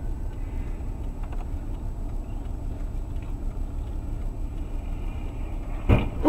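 Steady low running noise of a car's engine and tyres, heard from inside the cabin through a dash camera. A sudden loud sound and a man's voice break in near the end.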